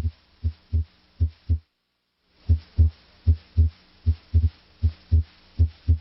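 Heart sounds through a stethoscope's diaphragm at the aortic area: a regular lub-dub rhythm of paired S1 and S2 thumps at about 75 beats a minute, at a site where S2 is usually louder than S1. The sound drops out completely for under a second about two seconds in.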